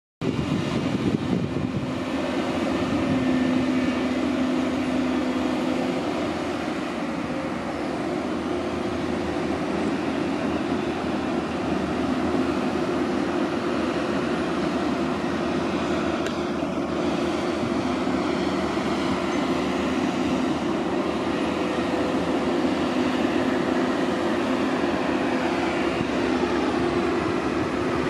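Steady diesel engine drone of a Doosan DX300LC crawler excavator working, with a held low hum, and a Volvo articulated dump truck's engine running with it.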